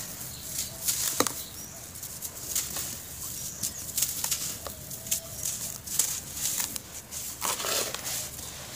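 Hands squeezing and crumbling clumps of dry, gritty grey powder, grains crackling and rustling as they break apart and sift through the fingers.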